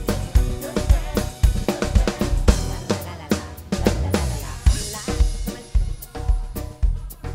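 PDP drum kit with a DW Collector's snare and Zildjian K cymbals played live with a band, keyboards and bass sounding under a steady kick-and-snare beat with cymbals. About three seconds in the kick drops out briefly, a cymbal crash rings near the middle, and the beat picks back up.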